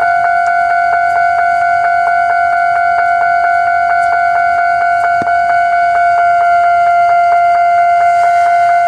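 Japanese railway level-crossing warning bell ringing on and on in a steady, even rhythm of about three dings a second. It is stuck sounding because a lightning strike damaged the crossing equipment.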